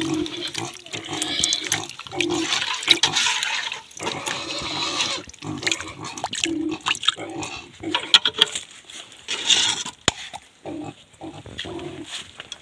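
Pigs grunting on and off, with the wet squelch and slosh of pig feed being mixed by hand in a metal basin.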